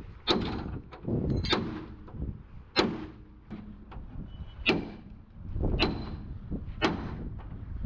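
Heavy hammer blows on a steel truck chassis frame: six separate strikes, each ringing briefly, spaced a second or two apart over a low background rumble.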